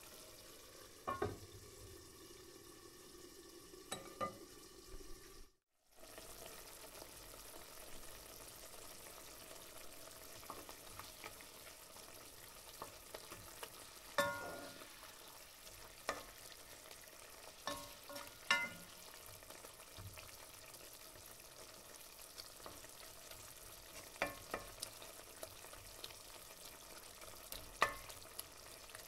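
Tuna and squid-ink sauce sizzling gently in a stainless steel pan while it is stirred with a silicone spatula, with a sharp knock now and then.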